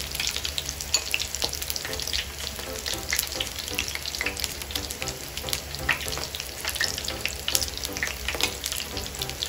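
Cooking oil frying: a steady, dense crackle and sizzle.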